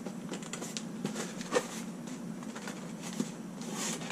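A steady low hum with scattered light clicks and rustles of a tool and its packaging being handled. The rustling is a little stronger near the end.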